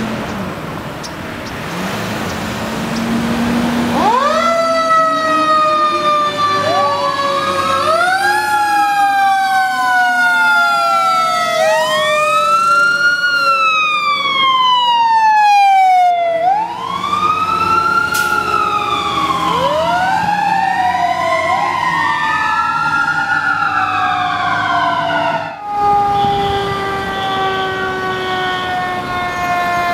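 Fire apparatus sirens wailing: a low tone winds up over the first few seconds, then the siren on a red rescue truck sweeps up and down in slow overlapping wails. About 26 s in, the sound changes abruptly to a fire engine's siren with a slow, falling wail.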